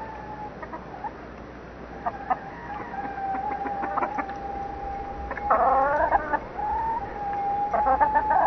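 Backyard chickens calling: clucks and long drawn-out calls, with a rooster crowing loudly about halfway through.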